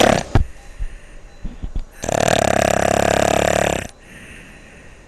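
A person snoring, the uvula vibrating in the throat. The tail of one snore ends at the start, and a second loud snore of about two seconds begins about two seconds in, with quieter breathing between.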